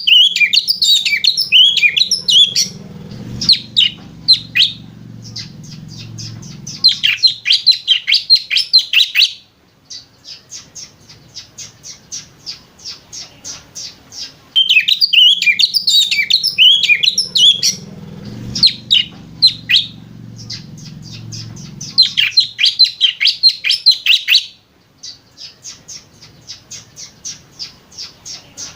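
Oriental magpie-robin (kacer) singing a fast, high, chattering twitter that imitates a lovebird, alternating dense tangled phrases with quick runs of short repeated notes, about four or five a second. The same sequence of phrases comes round again about halfway through.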